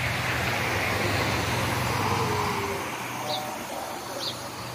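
Road traffic running steadily, with a vehicle passing in the first two seconds. Two short high chirps near the end.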